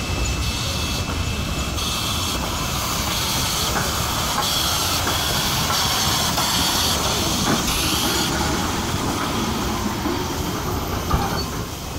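Heritage steam train hauled by AC16 and PB15 steam locomotives passing close by: the locomotive and then its carriages rolling past in a steady loud rumble and hiss, with a regular beat about every two-thirds of a second.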